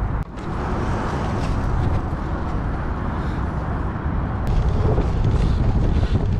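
Wind buffeting an action camera's microphone over the rumble of cyclocross tyres rolling on grass and dirt.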